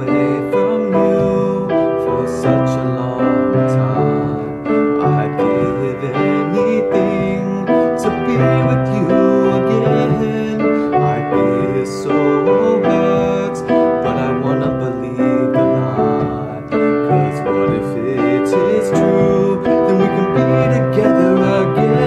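Piano playing a slow ballad accompaniment, sustained chords and melody notes.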